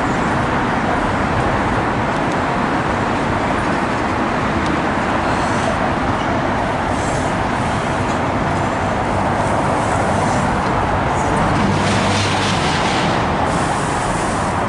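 Steady street traffic noise, an even wash of passing cars with a faint engine hum swelling about ten seconds in.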